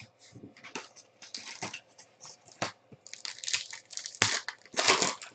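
Crinkling and tearing of plastic or foil wrapping, like a trading-card pack being ripped open and handled, in irregular rustling bursts that grow louder near the end.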